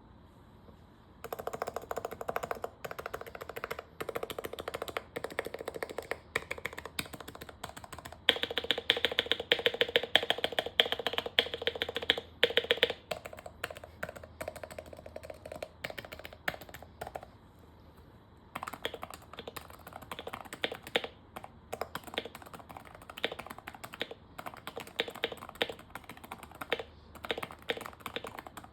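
Typing on a custom Topre keyboard (Sho66 r1) with lubed sliders, 35g rubber domes, PBT keycaps and a stainless steel plate: a steady run of soft keystrokes. A louder, faster flurry of keystrokes lasts several seconds about a third of the way in, and there is a brief pause a little past the middle.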